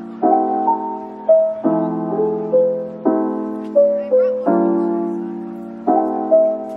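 Background piano music: soft chords struck about every second and a half, each fading away, with a simple melody above.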